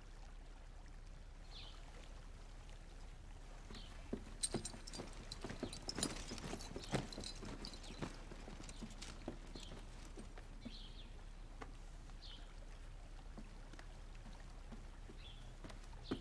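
Quiet room with a low hum. From about four to eight seconds in come a string of faint, irregular footsteps and knocks, as of several people walking off across a floor. A faint high chirp repeats about every second and a half.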